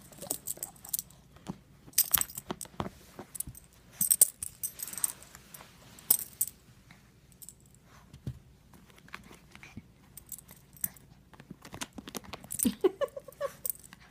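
Metal tags on a small dog's collar jingling and clinking in irregular bursts as the dog tugs and shakes its head, working to pull a toy out of a shoe. A short squeak near the end.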